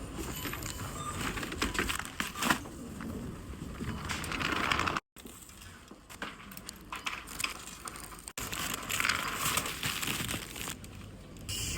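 Crinkling and rustling handled close to the microphone, with small clicks, broken by abrupt edit cuts about five and eight seconds in.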